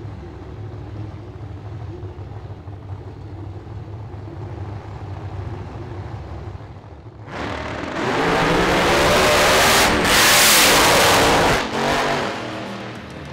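Supercharged, methanol-fuelled 511ci Hemi V8 of a drag-racing Chevelle doorslammer idling, then about seven seconds in it opens up suddenly to full throttle, its note rising, dipping briefly twice, then easing off near the end.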